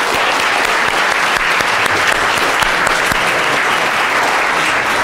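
Audience applauding, a steady, dense clapping.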